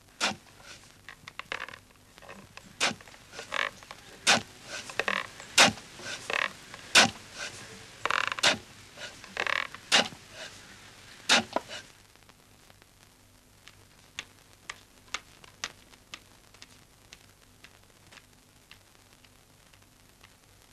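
A run of irregular sharp knocks and clicks, with a few short creaks, loud for about the first twelve seconds and then fainter and sparser.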